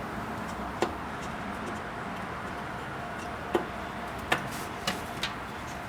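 A handful of sharp, separate clicks and taps from fitting the metal retaining strap onto the airbox, over a steady background hiss.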